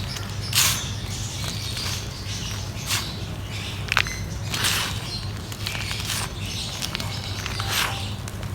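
Dry mud being crumbled on a sheet, crackling and crunching in short bursts about once a second, with one sharp snap about four seconds in. A steady low hum runs underneath.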